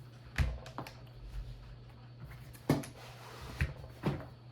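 A handful of separate sharp clicks and knocks from mechanical keyboard parts being handled, over a steady low hum.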